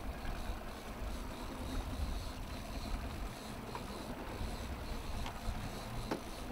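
Wind and choppy lake water around a fishing boat: a steady low rumble and wash with no distinct events.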